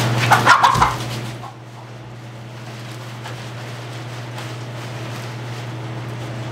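Pine shavings rustling as they are poured from a bag into plastic nesting boxes, loudest in about the first second, then quieter. A steady low hum runs underneath.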